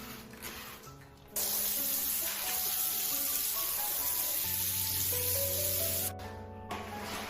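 Background music, joined about a second in by a loud, steady hiss that cuts off sharply about five seconds later.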